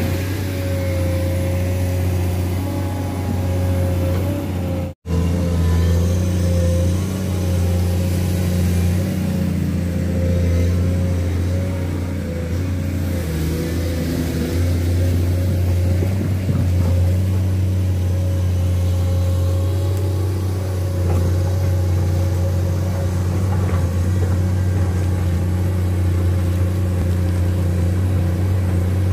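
Komatsu PC210 hydraulic excavator's six-cylinder diesel engine running steadily, with a wavering whine above its low hum. The sound cuts out abruptly for an instant about five seconds in.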